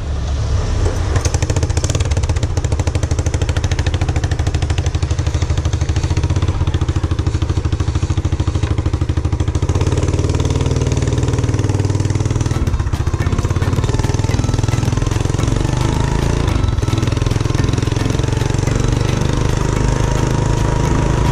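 A small motor scooter's engine running as it pulls away and is ridden along a road, with a steady, rapid firing pulse.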